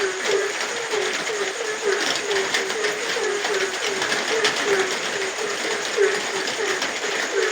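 A frog calling over and over in short, low croaks, about three a second, over steady rain hiss with the tick of raindrops.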